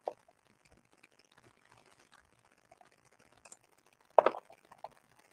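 Near silence: room tone, broken by a few faint clicks and one brief louder sound about four seconds in.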